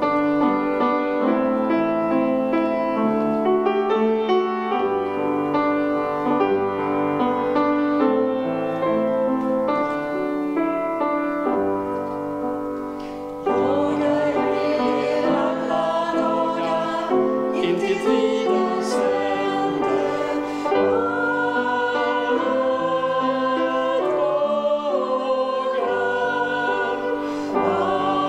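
Grand piano playing a hymn's introduction; about halfway through, a woman's voice comes in singing the hymn over the piano accompaniment.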